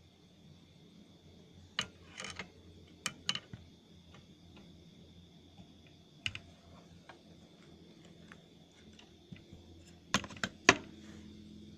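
Scattered sharp clicks and taps, a cluster about two to three and a half seconds in and the loudest few about ten seconds in, over a faint steady low hum and a thin high steady tone.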